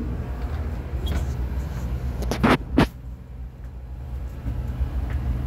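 Tugboat's diesel engines running with a steady low rumble, heard from inside the wheelhouse. Two sharp knocks come close together about two and a half seconds in.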